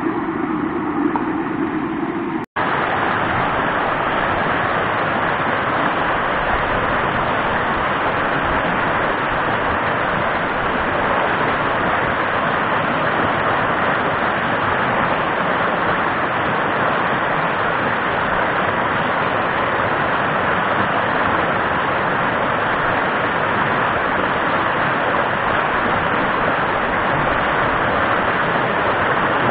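Fast mountain-stream rapids rushing steadily over rocks, a loud even roar of white water. It cuts out for an instant about two and a half seconds in, then carries on unchanged.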